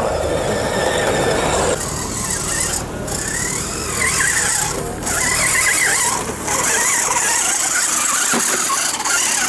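Electric motor and gearing of a radio-controlled scale rally truck whining as it drives over sand, the pitch rising and falling with the throttle.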